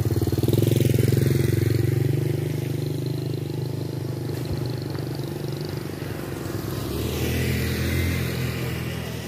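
A small motorcycle engine riding past close by, loudest about a second in and then fading, with another engine swelling again near the end.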